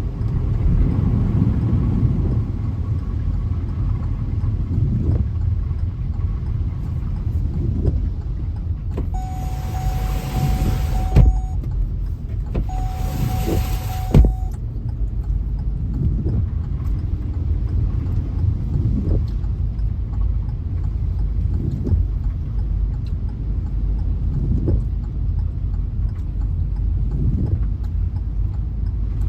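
Steady low rumble of a car driving, heard from inside the cabin, during heavy rain. Near the middle come two separate hissing bursts of about two seconds each, and each ends in a sharp knock.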